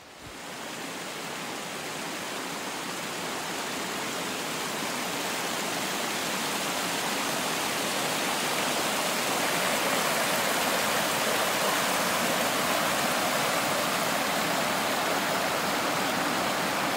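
Small mountain stream cascading over rock ledges: a steady rush of water that fades in over the first second or two.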